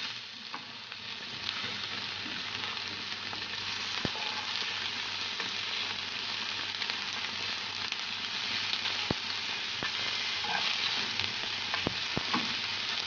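Chicken-and-beef köfte patties sizzling as they fry slowly in a pan: a steady hiss with a few sharp pops of fat.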